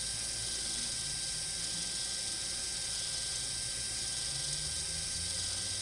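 Electronic parking brake motor on a 2017 Honda CR-V rear brake caliper, fed directly from a 12-volt car battery, running with a steady faint whir. It is winding the caliper's internal screw back in; with the piston not pushing outward, this shows the motor is turning in the retracting direction.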